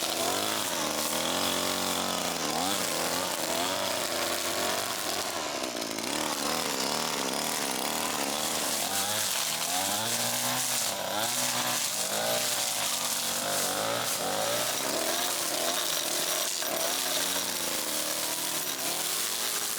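Small gas engine of a hand-held yard tool, such as a chainsaw or trimmer, revving up and down repeatedly as it works.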